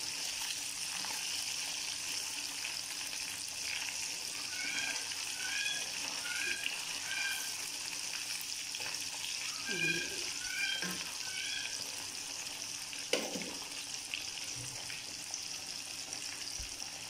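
Fish pieces deep-frying in hot oil in an iron kadai, a steady sizzle, with a single tap of metal tongs against the pan a little past the middle.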